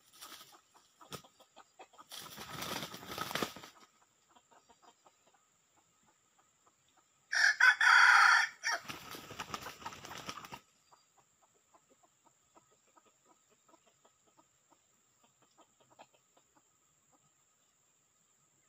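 Red junglefowl rooster crowing once, a loud call about a second and a half long, about seven seconds in. Shorter bursts of rustling noise come before and after the crow.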